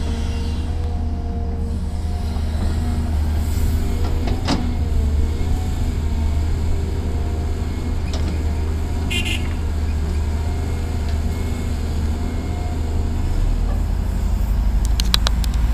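CASE crawler excavator's diesel engine working steadily under load, with faint tones that come and go as the boom and bucket move. A single sharp knock about four and a half seconds in, and a few clanks near the end.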